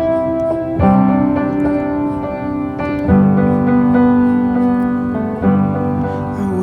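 Background music: a piano playing slow held chords, a new chord struck about every two seconds.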